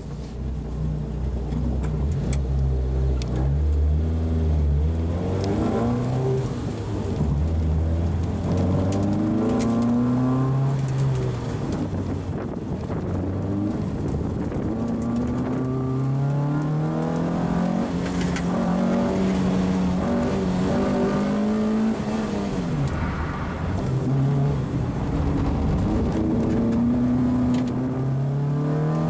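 Peugeot 106 Rallye's four-cylinder engine at racing speed, heard from inside the cabin: the pitch climbs again and again and drops back at each gear change, holds steadier along the faster stretch, and falls away and picks up again near the end as the car slows for a corner and accelerates out.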